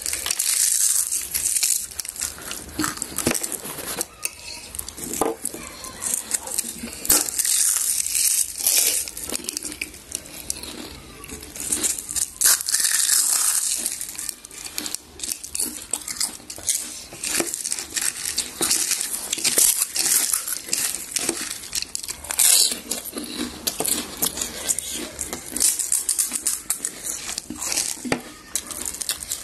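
Crisp panipuri shells crunching irregularly as they are bitten and chewed, with occasional clinks of plates and utensils.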